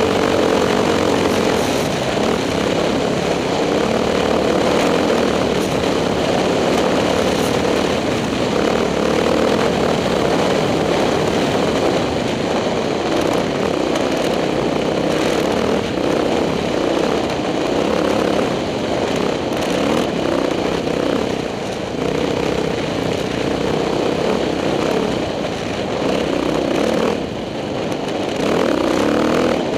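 KTM 620 LC4 single-cylinder four-stroke motorcycle engine running steadily under load as the bike rides across sand. The throttle eases off briefly twice in the second half.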